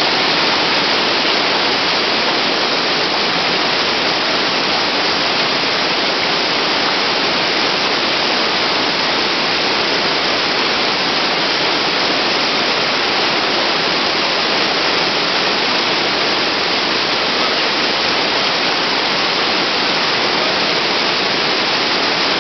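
Whitewater river rapids rushing loudly and steadily, a dense even wash of water noise.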